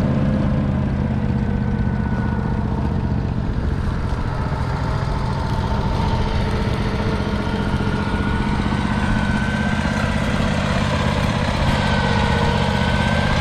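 1953 Ransomes MG6 crawler's 0.6-litre single-cylinder petrol engine running steadily, with a fainter whine above the engine note that slowly wavers in pitch.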